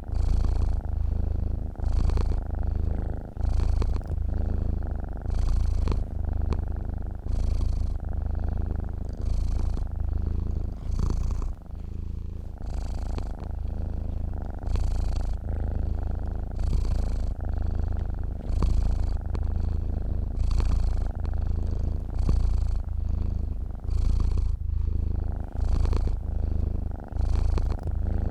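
Sleeping domestic cat purring steadily and close up, a low rumble that swells with each breath in and out, about once every second and a quarter.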